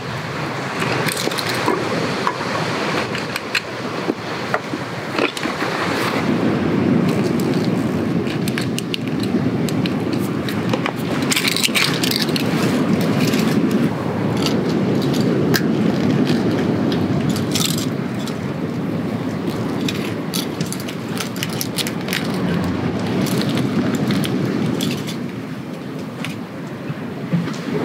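Camping gear being handled: scattered clicks, rattles and scrapes. Under them is a steady low rush of wind and surf that grows louder about six seconds in.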